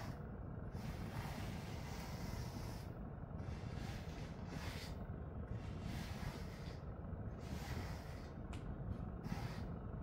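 Slicker brush rasping through a dog's thick double coat in long strokes, a swish about every two seconds with short breaks between, over a steady low rumble.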